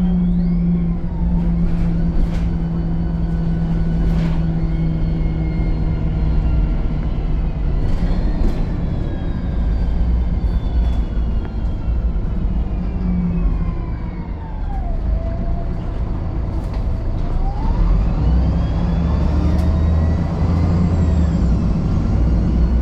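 VDL SB200 Wright Pulsar 2 single-deck bus heard from on board: a low engine hum and rumble with a whine that falls as the bus slows, then rises again as it pulls away. There are a few sharp clicks and rattles from the body.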